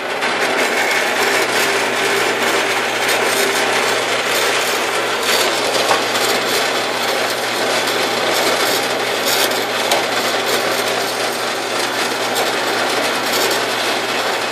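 Harbor Freight 4x6 metal-cutting bandsaw running on slow speed, its blade cutting into a metal bar held in the vise: a steady rasping noise over a low motor hum.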